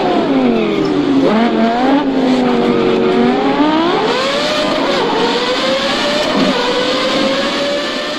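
Formula 1 car engines at racing speed. The pitch drops sharply in the first second as the car slows and shifts down, then climbs through several gear changes and holds a high, slowly rising note from about five seconds in.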